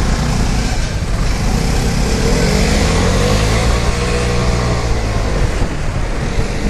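Vespa Primavera 150 scooter's single-cylinder engine running while filtering through traffic, its pitch rising on the throttle a couple of seconds in and then easing off, over a steady rush of wind and traffic noise.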